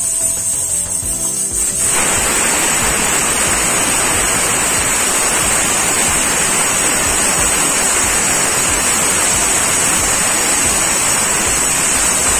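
Aluminium pressure cooker whistling on a gas burner: steam jets from the weight valve as a loud hiss with a high, steady whistle tone, the full blast starting about two seconds in. It is the pressure release that counts off one of the 5–6 whistles the dish is cooked for.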